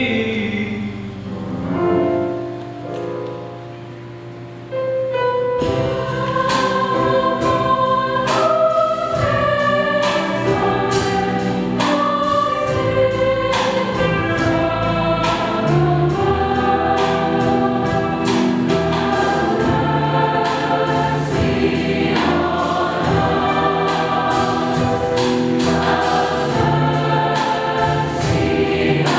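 Large mixed choir singing with piano accompaniment. After a soft, fading passage in the first few seconds, the full choir and accompaniment come in loudly about five seconds in, over a steady rhythmic beat.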